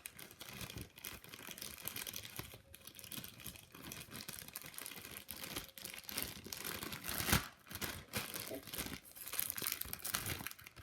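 Packaging crinkling and rustling as it is handled, with one sharper, louder crackle about seven seconds in.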